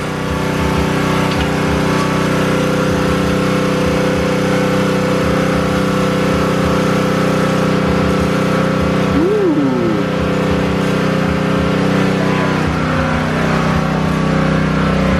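An engine running steadily at one unchanging pitch. About nine seconds in, a short squeak rises and falls in pitch.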